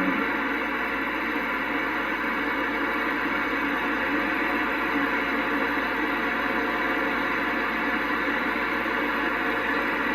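CB radio receiver giving a steady rush of static and noise with no clear voice, as several stations key up over one another at the same moment.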